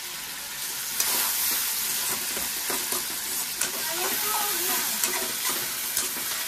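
Chopped tomatoes and onions sizzling in a steel kadhai over a gas flame while a steel spatula stirs and scrapes them, clinking sharply against the pan now and then.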